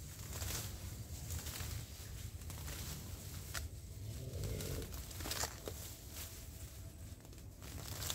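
Leaves and plant stems rustling and crackling as someone works among them by hand, with many short, sharp crackles and snaps scattered through.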